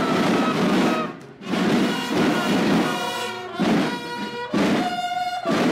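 Children's school drum and bugle band (banda de guerra) playing: rapid snare drumming, then bugle notes from about halfway, ending on a long held note.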